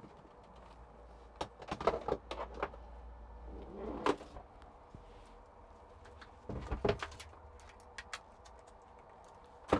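Clicks and knocks of hard plastic parts and plug leads being handled as a screen unit and its holder are fitted in a small car cabin. They come in short clusters: a few taps, a louder knock, then a pair of knocks.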